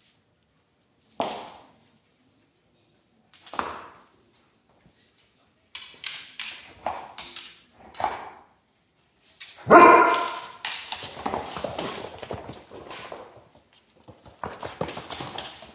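Two Vizslas, a puppy and an older dog, playing: short separate barks and yips, the loudest about ten seconds in, then longer, denser stretches of play noise.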